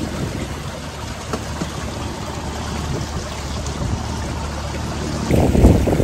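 Outboard motor running steadily on a Kimple Hunter 420 aluminium boat under way, with water rushing along the hull. The rushing, splashing noise grows louder near the end.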